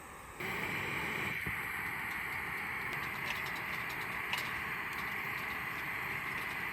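Wood fire burning, a steady hiss with a few sharp crackles. The sound comes in suddenly about half a second in.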